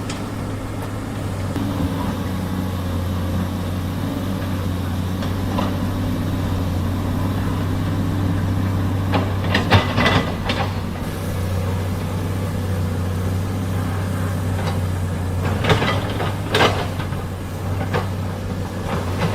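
Heavy truck engine idling steadily, a low even drone, with a few short clattering knocks about ten seconds in and again near the end.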